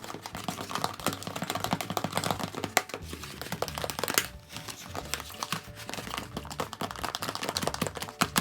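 Glue, shaving-cream and contact-solution slime mixture being stirred in a bowl, a dense run of rapid, irregular sticky clicks and crackles. The mixture is not yet setting into slime.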